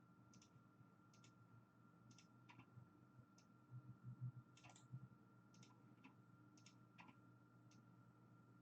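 Faint, irregular clicking at a computer, about a dozen clicks spread over several seconds, over a low steady electrical hum.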